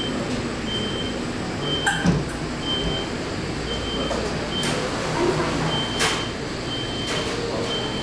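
Café room ambience: a steady low background hum, a short high beep repeating about once a second, and a few sharp knocks scattered through the room.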